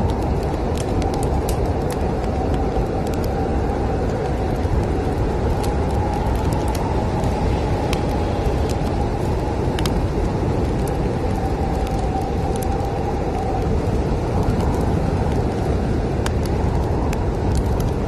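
Snowstorm wind blowing in a steady, deep rush, with a faint whistle in it for most of the stretch. Scattered sharp crackles and pops of burning firewood sound over it.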